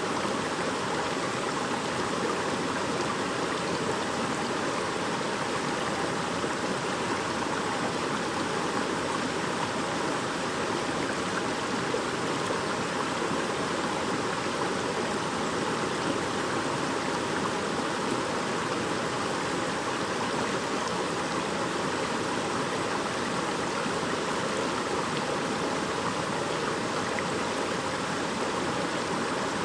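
A shallow stream babbling over stones, a steady rushing burble of running water.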